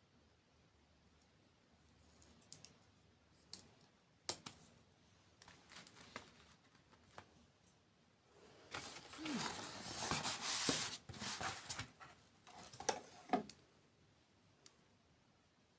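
Close-miked ASMR handling and eating sounds: scattered soft clicks and taps, then a few seconds of dense crinkling and crunching from about nine to twelve seconds in, and two more sharp crackles shortly after.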